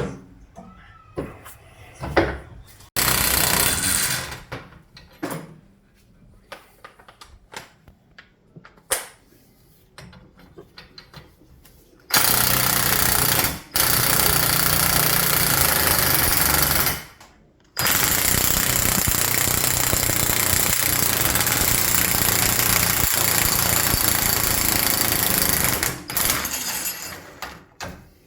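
Pneumatic impact wrench hammering in several long runs, the longest about eight seconds, while a front strut assembly's top nut is done up and the spring compressor worked; scattered clicks and knocks of tools between the runs.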